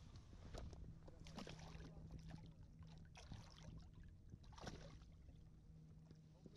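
Faint water splashing and sloshing at a kayak's side around a lake trout held in a lip gripper at the surface. Several brief splashes or knocks stand out, the strongest about a second and a half and nearly five seconds in, over a low steady hum.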